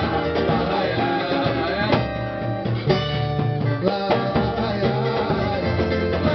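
Samba group playing live: plucked strings over drums and percussion in a steady samba rhythm.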